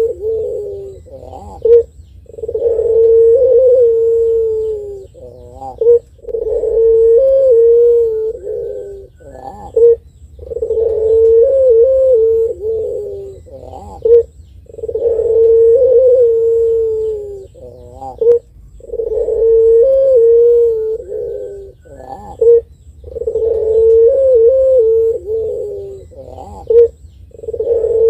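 Caged Barbary dove (ringneck dove, the Indonesian 'puter pelung') cooing over and over. Each phrase is a brief sharp note and then a long, wavering coo of about three seconds, and the phrase repeats roughly every four seconds.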